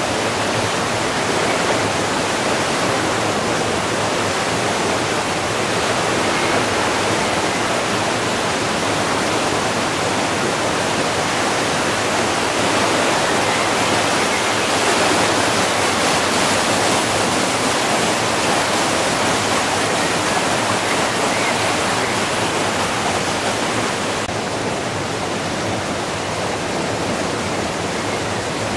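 A river in flood rushing fast: a loud, steady wash of churning water, a little quieter for the last few seconds.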